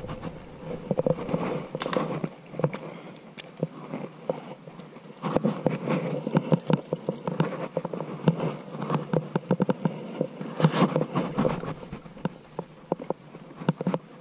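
Irregular rustling, crackling and clicking of leaves and water-hyacinth stems as a small hooked fish is hauled up out of the water into the shoreline plants and grabbed by hand. The handling is busiest from about five seconds in and again near eleven seconds.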